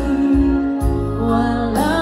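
A woman singing into a microphone with electronic keyboard accompaniment, holding long notes over a steady bass.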